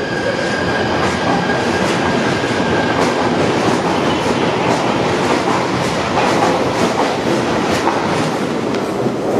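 London Underground Northern Line train (1995 Stock) pulling out of the station, wheels clattering over the rail joints. A steady high whine fades out about three seconds in.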